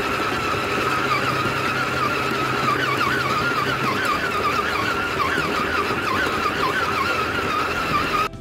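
Stand mixer motor running with a whine that wavers up and down in pitch as the flat beater works shortcrust dough in a stainless steel bowl. It cuts off suddenly near the end.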